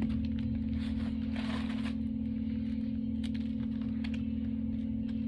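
Soft clicks, scrapes and rustles of someone eating a sub sandwich, over a steady low hum.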